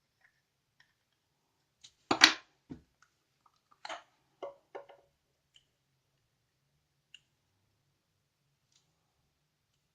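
Small clicks and knocks of hands working a thin wire into the drilled hole of an LED bulb's housing and handling the bulb on a table. The loudest knock comes about two seconds in, with a few lighter clicks over the next three seconds and then only faint ticks.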